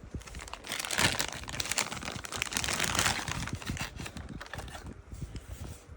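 Cardboard box and packaging being opened and handled: irregular rustling and crinkling with small scrapes and clicks, busiest about a second in and again two to three seconds in.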